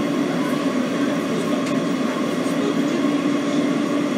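Kawasaki R160B subway train running between stations: a steady rumble of wheels on rail with a continuous low hum.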